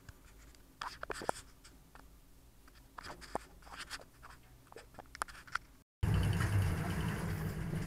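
Sparse small scrapes and clicks of handling noise near the microphone. About six seconds in, after a cut, these give way to a steady low rumble from the boat's running engine.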